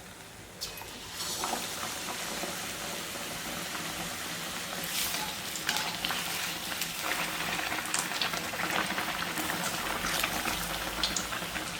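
A whole capsicum coated in gram-flour bajji batter deep-frying in hot oil, sizzling and crackling steadily. The sizzle starts about a second in, as it goes into the oil.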